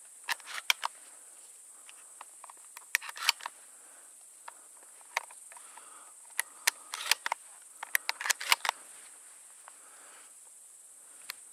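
Steady high chirring of grasshoppers, broken by scattered sharp clicks and rustles of handling in small clusters, loudest about two-thirds of the way through.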